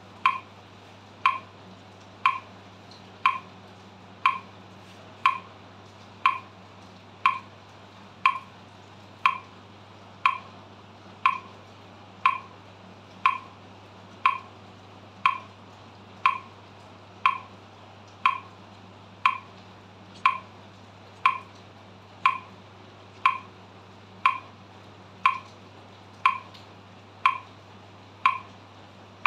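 Metronome set to 60 BPM clicking evenly once a second, every beat the same with no accent. A steady low hum runs underneath.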